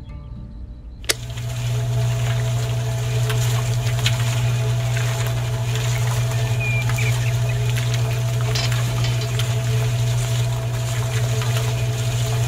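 A miniature DIY concrete mixer's small electric motor is switched on with a click about a second in. It then runs with a steady hum, with a few light clicks over it.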